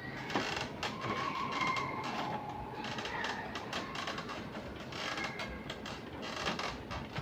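Plastic parts of an HP LaserJet MFP 1200w laser printer clicking and creaking as they are handled: a scattered run of light clicks.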